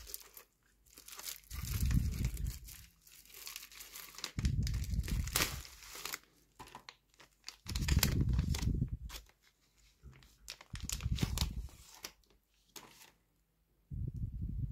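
Plastic packaging crinkling and rustling as it is handled, with dull handling thumps and rumbles about every three seconds.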